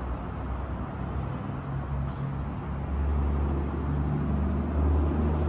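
Downtown street traffic: a low engine drone from road vehicles that grows louder about three seconds in, as a heavy vehicle draws near.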